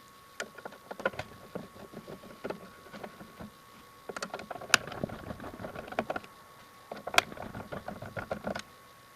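Irregular clicks, taps and light knocks of a screwdriver and the plastic and metal parts of a DVD player being handled during disassembly, over a faint steady high tone.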